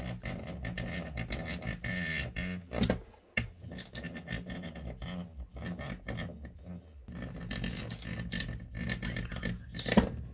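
PMD Clean facial cleansing device running, its vibrating head giving a steady hum, with scraping and rubbing as it is handled. A sharp knock comes about three seconds in and another near the end.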